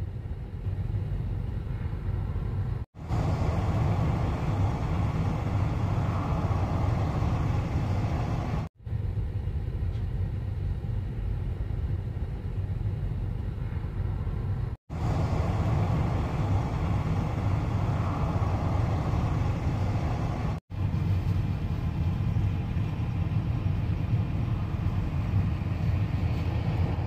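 Steady low vehicle rumble, broken by four brief dropouts about six seconds apart.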